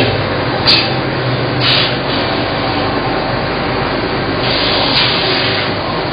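Loud, steady machine noise with several short hissing bursts, one of them longer, about a second, just before the end.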